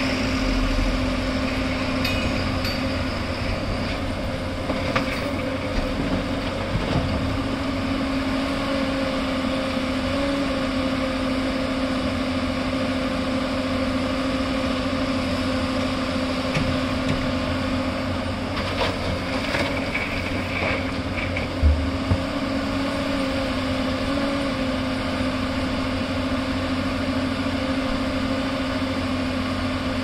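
Diesel engine of a Hyundai R215L Smart Plus crawler excavator running steadily under hydraulic load as it digs and loads rock, its pitch wavering briefly now and then. A few short knocks come through, the sharpest about two-thirds of the way through.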